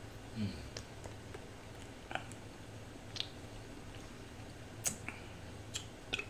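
Eating sounds picked up by a clip-on mic: scattered soft lip smacks and clicks of a man eating vanilla ice cream, over a low steady hum.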